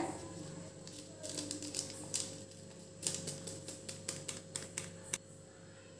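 A spoon stirring instant coffee powder into hot milk in a steel bowl, clicking lightly and irregularly against the metal from about a second in until about five seconds.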